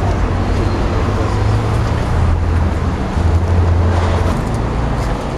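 Street traffic with a low, steady rumble of a motor vehicle running close by, swelling a little around the middle.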